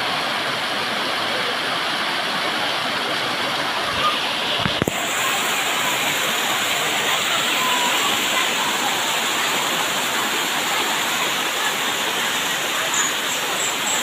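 Waterfall water rushing and splashing down a rock face into a shallow pool: a steady, even roar of falling water, briefly broken just before five seconds in.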